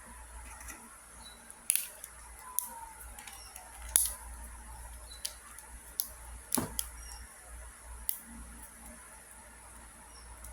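Plastic links of a Wacky Tracks snap-and-click fidget chain clicking as they are twisted into new positions: sharp single clicks at irregular intervals, the loudest about four seconds in.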